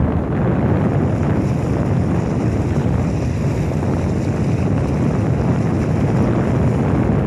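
Steady wind rumbling on the microphone aboard a boat under way, with the rush of water along the hull.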